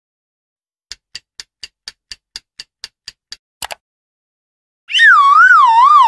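Cartoon sound effects: a run of light ticks, about four a second, then a sharp double click, and near the end a loud warbling tone that wavers up and down while sliding lower in pitch.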